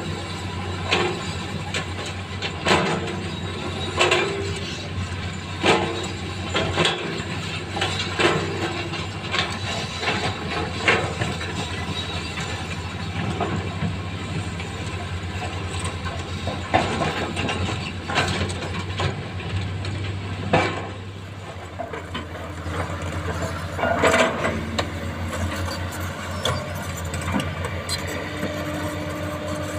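Hydraulic excavator's diesel engine running steadily, with sharp clanks and knocks every second or two as the bucket works through sand and rocks.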